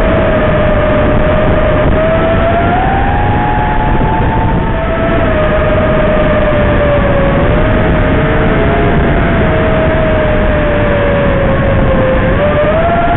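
5-inch FPV racing quadcopter in flight: its Lumenier 2350kv brushless motors and propellers whine under a heavy steady hiss, the pitch gliding up and down as the throttle changes.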